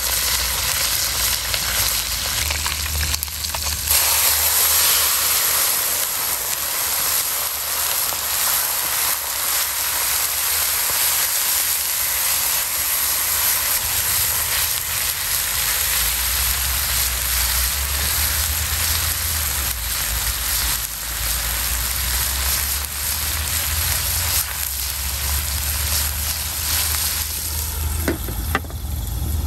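A whole bream sizzling in hot oil in a wok over a wood fire. About four seconds in the sizzle grows louder as liquid is poured in from a pan and turns to steam. Near the end a glass lid clinks onto the wok.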